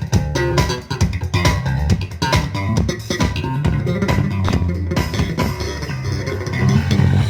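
Loud recorded music with a heavy, stepping bass line, plucked guitar and steady drum hits, played through a parade sound system during a sound check.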